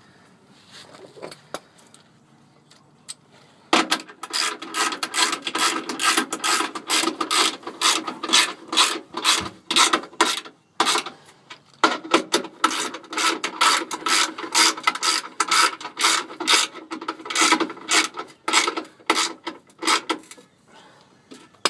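Hand socket ratchet clicking in quick back-and-forth strokes as a bolt is tightened. It starts about four seconds in, breaks off briefly midway, then runs on until near the end.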